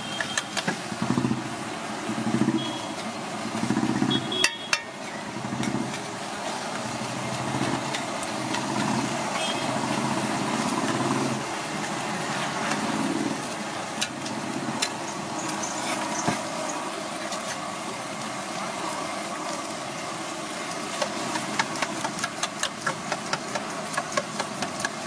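An engine running amid steady street noise, with a quick run of sharp taps in the last few seconds.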